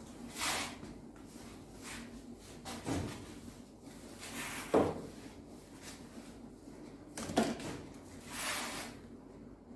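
Whiteboard duster rubbing across a marker-covered whiteboard in about six separate wiping strokes, each a short swish.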